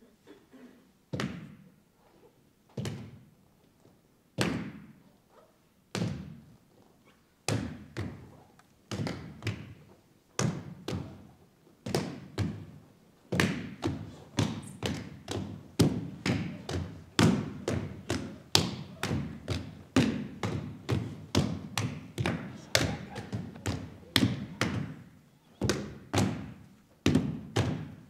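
Heavy percussive thuds ringing in a hall. They start about one every second and a half, then come faster and overlap until there are several hits a second, with a brief lull near the end.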